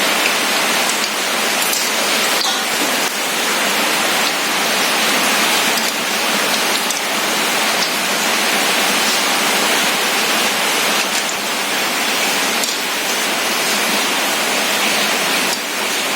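Bhature deep-frying in hot oil: a steady, dense sizzle with a few faint clicks.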